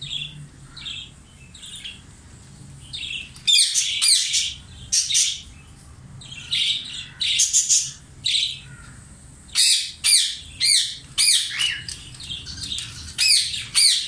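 Caged budgerigars and cockatiels calling: short, sharp high calls coming in quick runs, sparse at first and thick from about three and a half seconds in.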